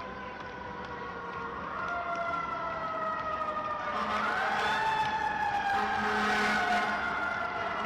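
Several emergency vehicle sirens wailing at once, their pitches slowly rising and falling, growing louder about four seconds in.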